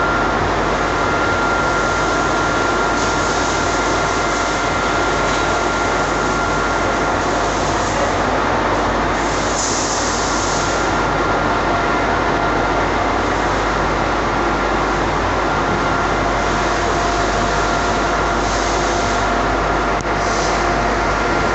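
Powder-coating machinery running: a loud, steady mechanical noise with a thin constant whine, and a few short spells of brighter hiss.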